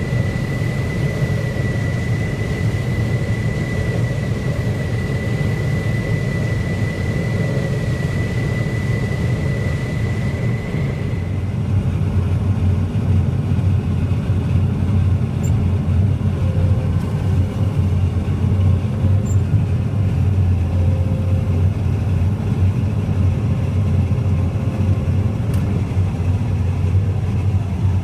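Heavy farm machinery running steadily with a deep engine rumble. A thin, steady high whine sounds over it for roughly the first 11 seconds and then stops.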